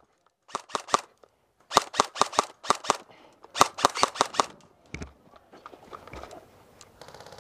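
Airsoft gun firing in three quick strings of several shots each, sharp snapping reports at several shots a second, followed by fainter scattered shots.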